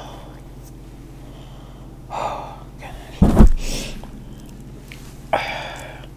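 A person's three short, sharp breaths close to the microphone, about two, three and five seconds in. The middle one is the loudest, with a deep thud.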